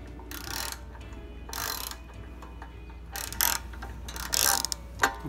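Spark plug wrench being worked in strokes on a Predator 212cc engine's spark plug to loosen it: a short rasp with each stroke, four times about a second and a half apart, then a few clicks near the end.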